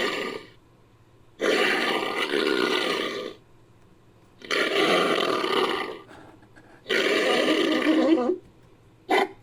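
Designed creature vocalisations built from leopard sounds: a series of harsh roaring calls, each lasting about one and a half to two seconds with short pauses between them, and a brief one near the end.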